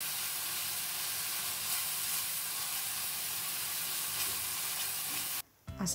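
Ground chili spice paste sizzling in oil in a nonstick wok as it is stirred with a wooden spatula: a steady frying hiss that cuts off abruptly about five and a half seconds in.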